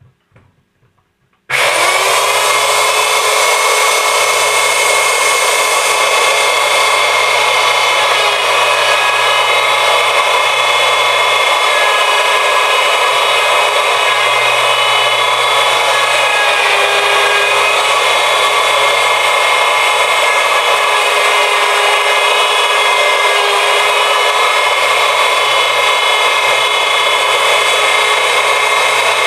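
Handheld wood router with a 1/2-inch straight bit, switched on about a second and a half in, spinning up quickly to a loud, steady high whine. It then routes black walnut, and its pitch dips briefly a couple of times as the bit takes load in the cut.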